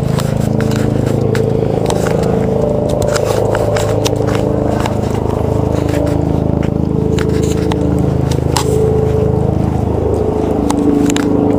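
Helicopter passing overhead: a steady low rotor drone with engine hum tones. Irregular scraping and clicking from the microphone is handled throughout.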